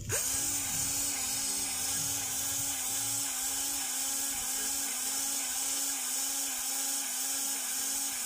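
Lincoln 12-volt cordless grease gun starting up and running steadily, its electric motor driving the pump to push grease into a grease fitting. It makes a steady high whine.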